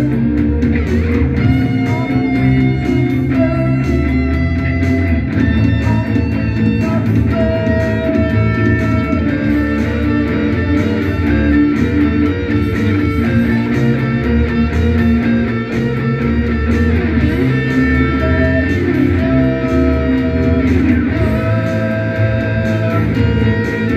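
Progressive rock instrumental passage led by electric guitar, with long held guitar notes over the full band.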